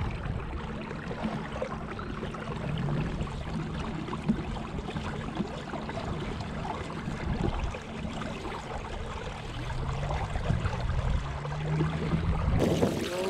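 Water rushing and lapping along a moving kayak's hull, with wind buffeting the microphone.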